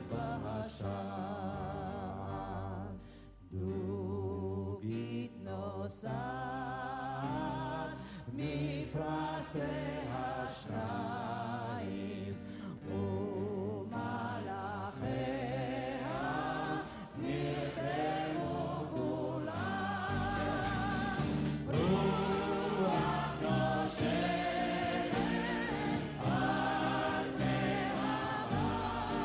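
Live group singing: a soloist and an audience sing a song together, many voices in unison over instrumental accompaniment. The singing grows fuller and louder about two-thirds of the way through.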